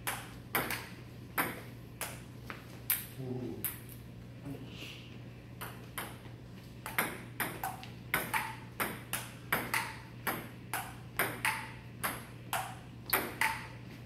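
Table tennis rally: the celluloid ball clicking off paddles and the table, about two or three hits a second, with a pause of about two seconds near the middle. A steady low hum runs underneath.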